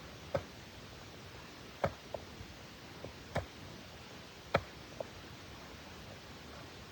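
A series of sharp knocks, about seven irregularly spaced strikes in the first five seconds, over a steady background hiss.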